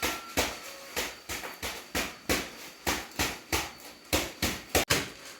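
A steady run of sharp knocks, about three or four a second, each one short and crisp.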